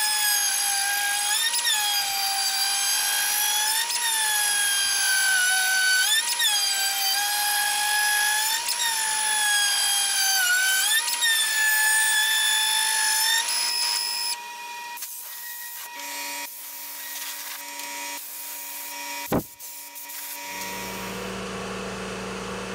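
CNC router spindle running a 2-inch-wide planer (surfacing) router bit across a board: a loud, steady high whine that lifts briefly in pitch about every two and a half seconds. About fourteen seconds in the whine stops, leaving weaker machine hum, then a single sharp knock and a lower steady hum near the end.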